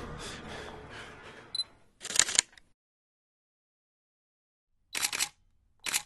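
Background music fading out, then short camera-shutter sound effects: a loud click-burst about two seconds in and two more close together near the end, with silence between.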